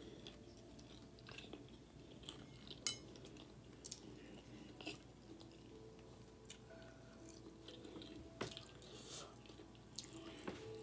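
Close-miked eating: a plastic spoon clicking and scraping on a plate, soft chewing, and the handling of fried chicken. Scattered sharp clicks, the sharpest about three seconds in.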